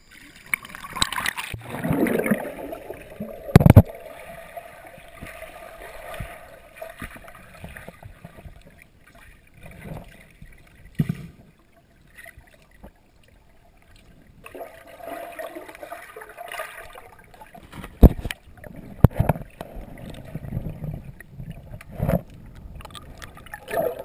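Water sloshing and gurgling as someone wades and dives in a muddy stream, partly heard from under the water, with a few sharp knocks and bumps, the loudest about four seconds in and several more in the second half.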